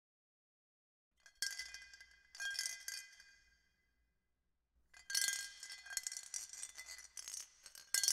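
Metal clinking and ringing: two sharp metallic strikes about a second apart, each ringing on and dying away, then from about five seconds in a continuous jingling rattle of clinking metal.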